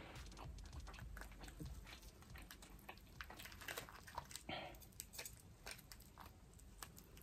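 Faint clicking and crackling of fingers pulling lobster meat from a sauce-covered tail shell. One slightly louder noise comes a little past halfway.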